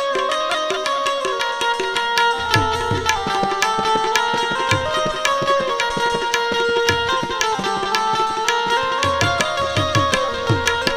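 Instrumental interlude of a Gujarati song: a harmonium holds and moves through melody notes over a fast hand-drum rhythm. From about two seconds in, the drum's deep bass strokes slide down in pitch.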